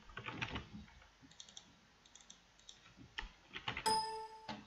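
Faint computer mouse clicks while browsing folders in a file dialog, with a soft rustle at the start. Near the end comes a brief steady tone lasting under a second.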